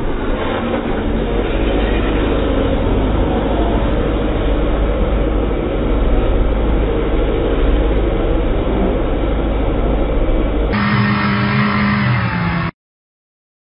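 Speedboat motor running hard at speed, with water rushing past the hull. The sound changes character about eleven seconds in, then cuts off abruptly.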